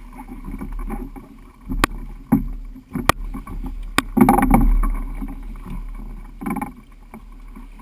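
Knocks and clatter as people move about and climb out of a moored inflatable flying boat whose engine is off: three sharp clicks in the first half and a few rustling bursts, over a low wind rumble on the microphone.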